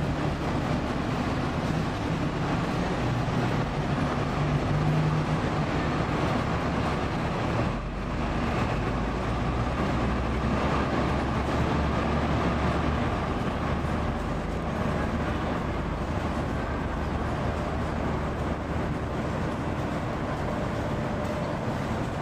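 Euro 6 Alexander Dennis Enviro500 MMC double-decker bus's diesel engine idling steadily while the bus stands parked.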